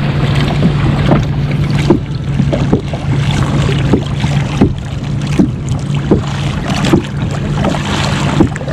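Water slapping and splashing against a kayak hull in a steady run of short, sharp splashes, with wind on the microphone and a steady low hum underneath.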